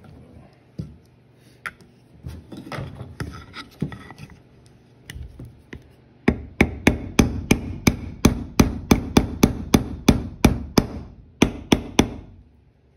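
Pliers used as a hammer tapping the trigger-guard pin into an RG 23 revolver's frame: a steady run of sharp metal-on-metal taps, about three to four a second, beginning about halfway through. Before that come a few seconds of softer scattered knocks and handling noises.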